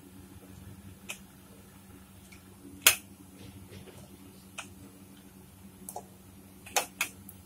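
About half a dozen scattered sharp clicks and taps as a hand presses grated coconut into a clear plastic mixer-grinder jar, knocking against the jar; the loudest comes about three seconds in, with two quick ones near the end.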